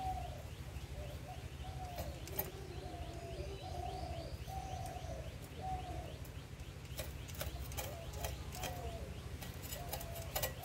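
Pigeons cooing over and over, a short arched coo about every half second, with a few sharp scrapes as bata fish are scaled against a boti blade.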